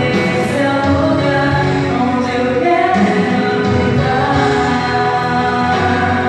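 Christian gospel song: a woman singing a slow melody with held notes over instrumental backing.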